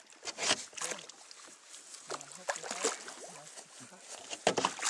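Water splashing and sloshing at the side of a fishing boat, with a few sharp splashes near the start and another near the end, and murmured voices in between.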